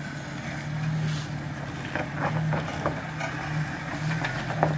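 Jeep Wrangler Rubicon's engine working under throttle as it crawls over rocks, rising in pitch in short spurts, with a few short knocks as the tyres and underbody meet rock.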